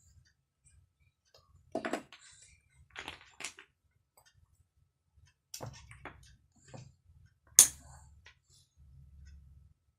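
Wooden toy blocks knocking and clattering against each other as they are handled and stacked: a series of separate wooden clacks, the sharpest and loudest about three quarters of the way through.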